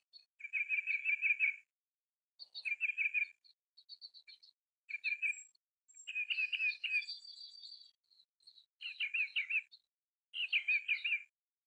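Songbirds singing: six short trilled phrases, each about a second or less, repeated every second or two, with thin, higher-pitched notes in the gaps between them.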